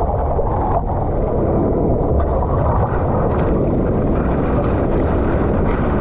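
Steady rush of ocean water and wind buffeting an action camera's microphone at the water's surface, with splashing as whitewater sprays over the board near the end.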